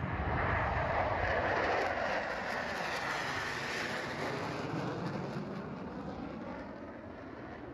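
Formation of four military jets flying past: jet engine noise that swells, is strongest in the first two seconds, then slowly fades away.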